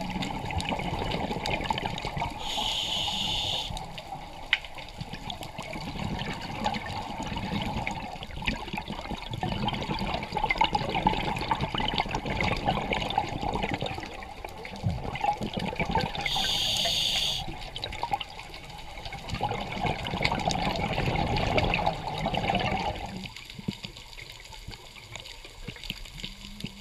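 Scuba diver's exhaled bubbles bubbling and crackling past an underwater camera, in long stretches of several seconds with quieter gaps between breaths. Twice there is a short high buzzy hiss, and the last few seconds are quieter.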